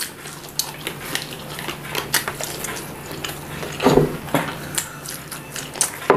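Close-up eating sounds: crisp fried spiral potato being bitten and chewed, with light clicks and rattles of wooden skewers and foil plates. A louder knock comes about four seconds in and another near the end.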